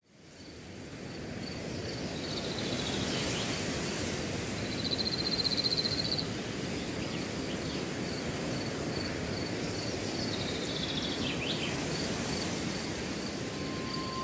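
Rural outdoor ambience fading in: a steady hiss with an insect's rapid, evenly pulsed high chirping throughout. A bird trills about five seconds in and gives falling calls a few seconds in and again near eleven seconds.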